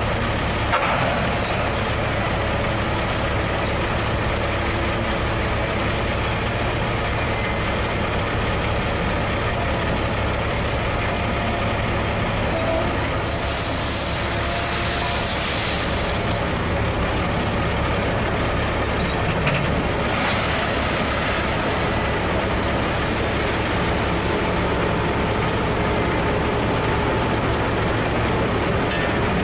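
Heavy diesel machinery running steadily, an excavator and a dump truck working close by, with a constant low engine hum. Two longer bursts of hissing come about 13 and 20 seconds in.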